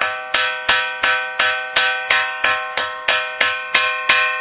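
A ringing rock, a natural boulder that sounds metallic, struck over and over at about three strikes a second. Each strike rings on like a bell with several clear, steady tones that fade before the next hit.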